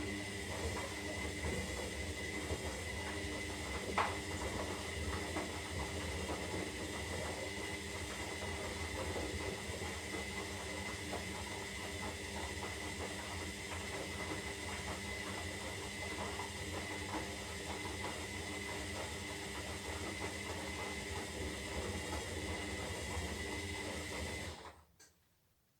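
Zanussi Lindo 300 washing machine running steadily during a synthetic wash cycle: a constant hiss with a high whine and low hum, one sharp click about four seconds in, cutting off abruptly near the end.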